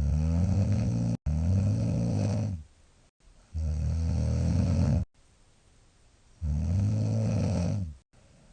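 A young woman snoring heavily in her sleep: three deep, rumbling snores about three seconds apart, each lasting roughly one and a half to two and a half seconds.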